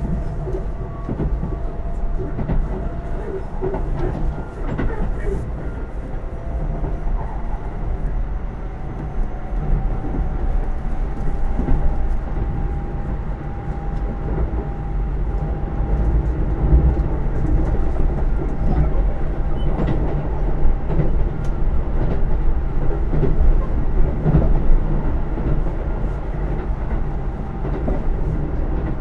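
Keisei AE100 electric train running, heard from inside a passenger car: a steady rumble of wheels on rail with clicks at rail joints. A faint motor whine rises a little in pitch through the middle.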